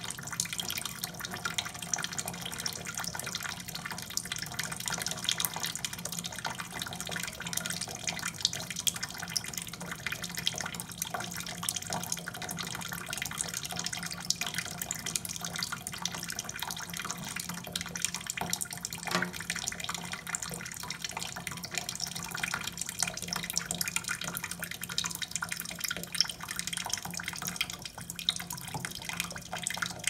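Tap water running and splashing onto the floor of a stainless steel sink, a steady spattering hiss.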